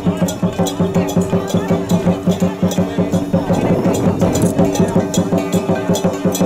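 Traditional temple percussion music: drum and cymbal strokes in a quick, even beat, about three to four a second, over a steady held droning tone.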